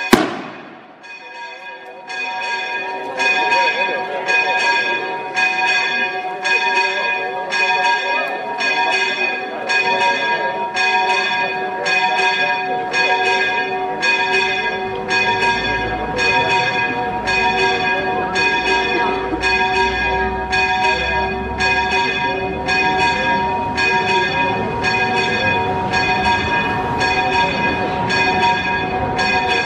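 Church bells rung in a fast, even peal, about three strokes every two seconds, the struck tones ringing on between strokes. A single sharp bang, the loudest sound, comes right at the start.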